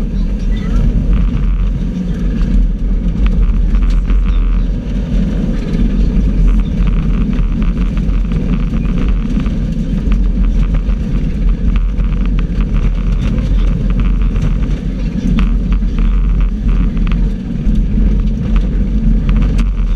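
Subaru rally car at speed on gravel, heard loud from inside the cabin: a steady, heavy engine and drivetrain rumble, with stones and gravel knocking and rattling against the underbody throughout.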